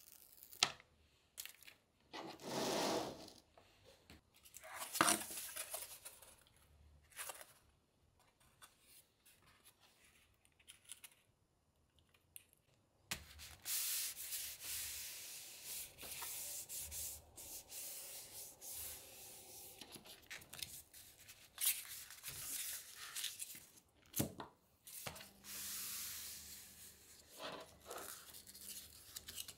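Backing paper peeled off strips of waterproof double-sided tape on a plastic mesh panel in a few short rips. Then, from about halfway, a longer stretch of hands rubbing and pressing a styrene board down onto the tape.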